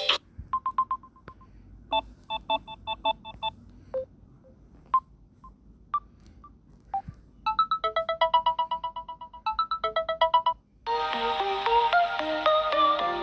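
Samsung Galaxy A03 ringtones playing: first a sparse electronic ringtone of short beeps and quick pulsed notes, then about 11 seconds in a fuller, busier melodic ringtone begins.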